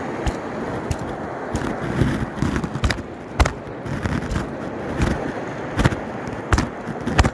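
Irregular sharp knocks and clicks, about a dozen, over a steady wash of wind and surf noise.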